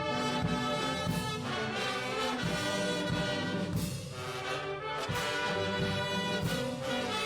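Brass band playing an anthem in sustained chords.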